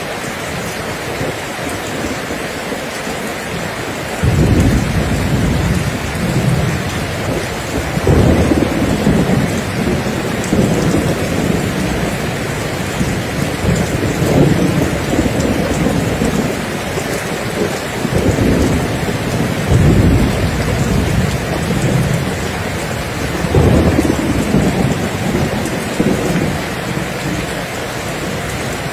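Steady rain with rolls of thunder: the first rumble comes in about four seconds in, and several more swell and fade over the steady hiss of the rain.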